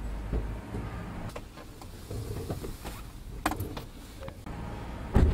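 Handling noises in a car: scattered clicks and knocks over a low rumble, with a heavy thump about five seconds in.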